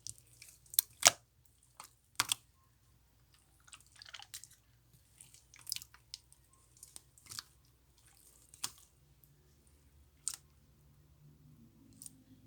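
Slime being pressed and pulled by hand while two slimes are worked into a marbled slime, making irregular sticky clicks and little pops. The loudest come about a second in and just after two seconds.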